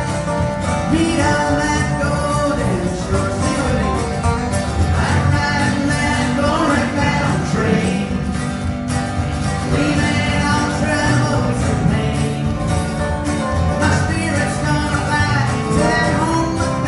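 Live country gospel song: a man singing with a strummed acoustic guitar.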